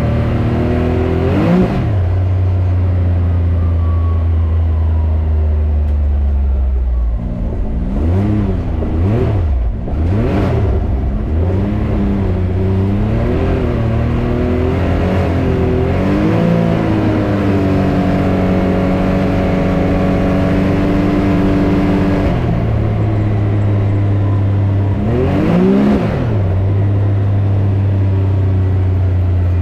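Can-Am Maverick X3 Turbo RR's turbocharged three-cylinder engine running under way. Engine speed rises and falls sharply with the throttle several times, with a steadier stretch of even running in the middle.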